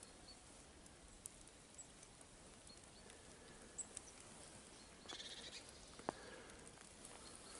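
Near silence: faint outdoor background with a few soft clicks and faint high chirps.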